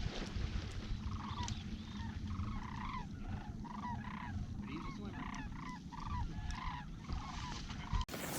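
A long run of more than a dozen duck quacks, evenly spaced about half a second apart, over a steady low rumble. The quacking cuts off abruptly near the end.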